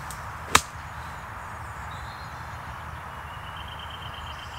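A golf club strikes the ball once, a single sharp crack, as the ball is chopped out sideways from beside a tree trunk.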